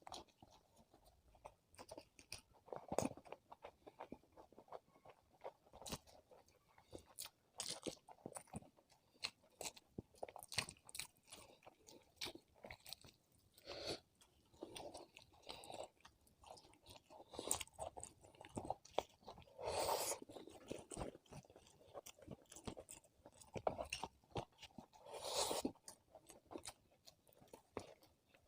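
Close-miked eating: chewing and biting into a meal of chicken biryani and roast chicken, with many short crunches and mouth clicks and a couple of longer, louder bites near the middle and toward the end.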